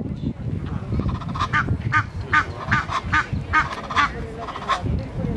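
Egyptian geese honking: a rapid run of repeated harsh calls, about two to three a second, from about a second and a half in until near the end, over a low background rumble.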